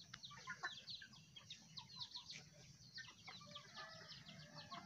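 A flock of free-range village chickens feeding on scattered grain, heard faintly: many quick, high chirps and peeps with a few clucks and a drawn-out call note in the later part.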